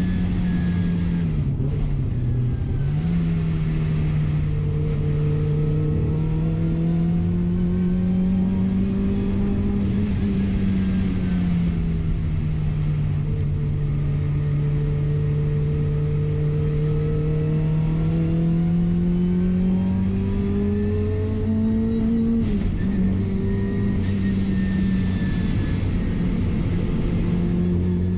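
Car engine running continuously under load, its pitch slowly rising and falling with the revs and dipping sharply twice, about two seconds in and again near 22 seconds.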